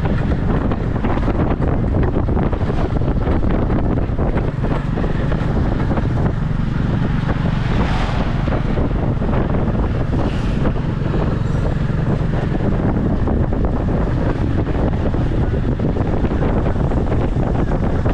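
Motorbike engine pulling a tuk-tuk carriage along at a steady cruise, with wind buffeting the microphone and road noise.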